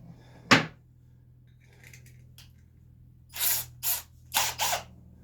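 Tools being handled on a workbench: one sharp click about half a second in, then four short clacks and scrapes in quick succession near the end, over a steady low hum.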